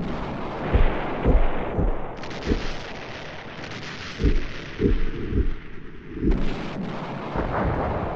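A soundtrack of deep, irregular booming thuds, about nine in all and one every half second to a second, over a steady low rumble.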